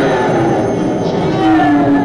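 Music of long held notes, a slow melody in which each note lasts over a second and sags a little in pitch as it ends.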